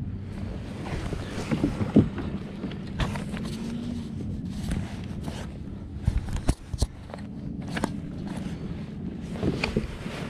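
Scattered knocks, clicks and rattles from gear being handled aboard a fishing kayak, over a steady low wash of wind and water.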